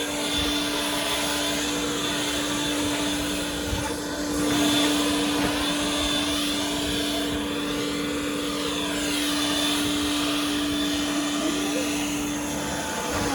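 A blower running at a steady pitch, blowing dust out. It is switched off at the very end.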